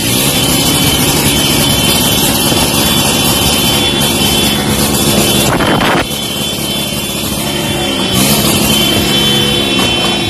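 Loud, continuous street noise of motorcycle engines running and revving, over a broad hiss from a ground fountain firework spraying sparks. The din drops suddenly about six seconds in.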